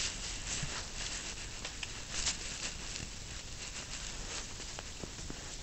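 Faint scattered light clicks and rustles over a steady hiss, the sound of small parts being handled.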